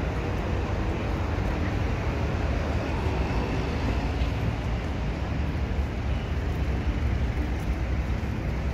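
Road traffic on a busy city street: a steady rumble of passing cars.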